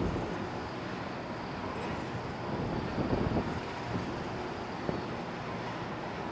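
Steady open-air noise of a carrier flight deck: wind and a low rumble of distant machinery, with a few small bumps around three seconds in.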